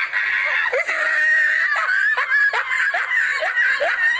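High-pitched, shrill laughter, coming in quick repeated bursts of about two to three a second.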